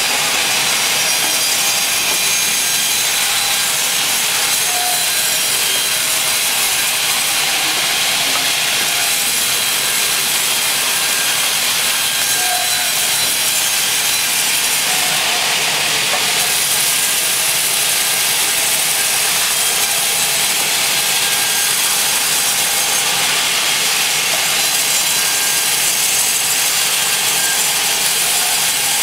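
Large band saw resawing 8-inch-wide walnut planks into thin slices. It makes a loud, steady cutting hiss with no breaks.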